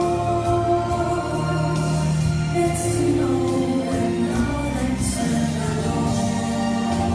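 Congregational worship song: voices singing held notes over a band with bass, and a steady beat from cymbals or percussion.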